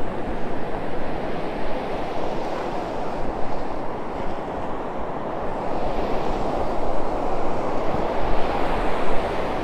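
Shallow ocean surf washing over wet sand, with wind rushing on the microphone: a steady hiss that grows a little louder in the last few seconds.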